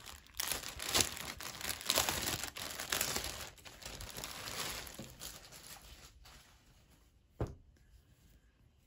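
Packaging crinkling and tearing as a t-shirt is unwrapped, busy for the first five seconds or so and then thinning out. Near the end there is a single knock.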